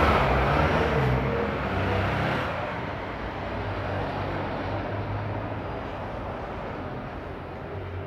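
A motor vehicle passing, loud at first and fading away over the first two or three seconds, then a steady wash of traffic noise with an intermittent low rumble.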